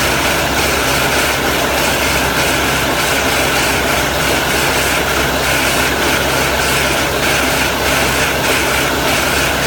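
Engine-driven round hay baler running steadily: a constant engine hum under even machinery noise.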